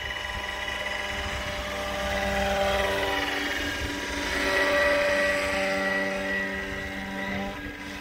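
Roban AS350 Squirrel scale radio-control helicopter climbing from a low hover, giving a steady whine from its rotors and drive. The whine grows louder as the model passes close about three and five seconds in.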